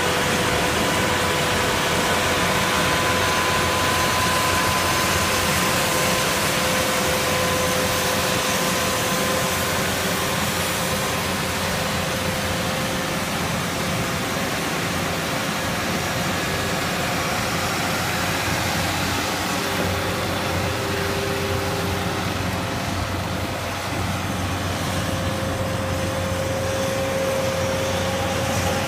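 Diesel engine of a 100 hp rubber-tracked crawler tractor running steadily under load as it pulls a rotary tiller through flooded mud, with a steady whine over the engine noise.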